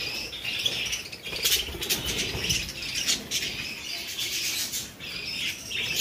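A flock of budgerigars chattering, a continuous jumble of warbles and squawks, with a few brief sharp flutters.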